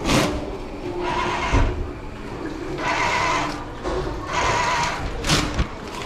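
Automatic paper towel dispenser's motor whirring in repeated short spurts, each under a second, as it feeds out lengths of paper towel, four or five times in a row.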